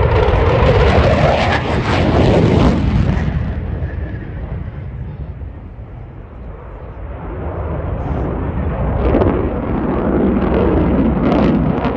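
F-15C Eagle's twin turbofan engines as the fighter passes low and climbs away: loud, rumbling jet noise that fades over the first few seconds, then swells again toward the end.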